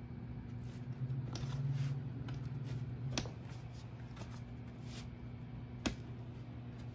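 Hands pressing wooden dowels into the holes of a particleboard furniture panel and working over it: light rustling and handling, with two sharp clicks about three seconds apart, over a steady low hum.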